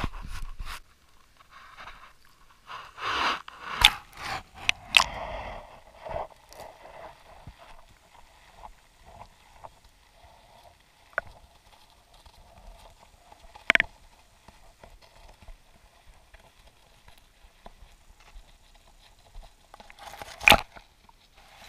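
GoPro in its waterproof housing being lowered through a hole in the ice: scraping and a few sharp knocks as it goes down in the first few seconds, then a muffled underwater hush broken by scattered knocks of the housing, the loudest near the end as it pushes through weeds.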